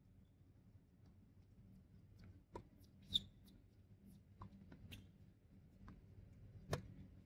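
Scattered sharp knocks of a tennis ball on racket strings and on a hard court, five in all at uneven spacing, otherwise faint. The loudest, about three seconds in, has a brief ringing ping.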